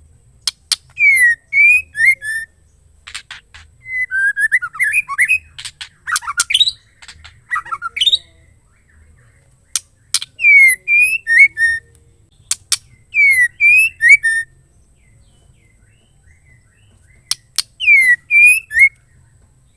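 Female white-rumped shama calling: sharp ticks followed by a short phrase of rising and falling whistled notes, repeated about four times with pauses between. There is a busier run of mixed chattering notes in the middle.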